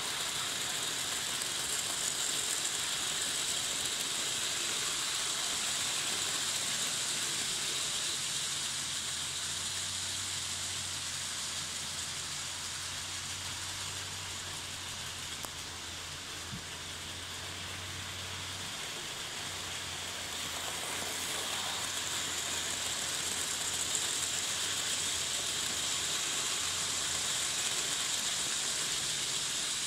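Model railway steam locomotive and its goods wagons running on the layout's track: a steady hissing running noise with a low hum, louder as the train passes close at the start and again near the end, and dipping in between.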